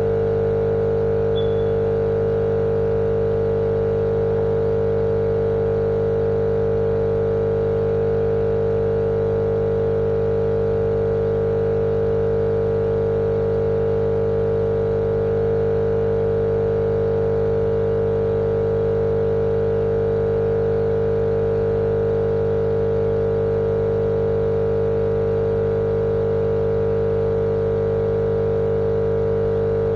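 Steady, unchanging motor drone with a strong mid-pitched hum over a lower rumble, looped as a sleep sound.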